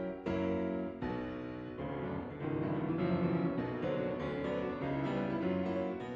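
Background music carried by a piano melody, a series of sustained keyboard notes.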